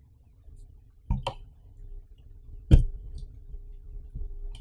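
Hard plastic camera batteries being set onto and clicked into a Kingma three-slot battery charger: two quick clicks about a second in, one louder click near the middle, and lighter taps near the end.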